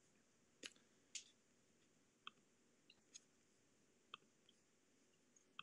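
Near silence: room tone with several faint, sharp clicks scattered through it.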